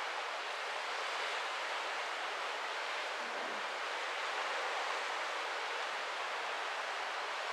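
Steady, even rushing noise of wind and sea water heard from the deck of a cruise ship under way.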